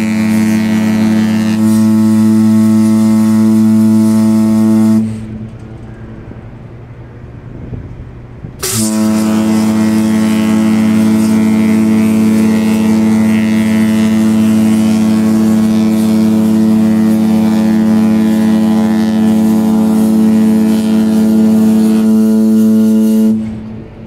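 Passenger ferry Hellenic Spirit's ship horn giving two long, loud blasts on departure. The first ends about five seconds in. After a pause of a few seconds, the second sounds for about fifteen seconds and then cuts off.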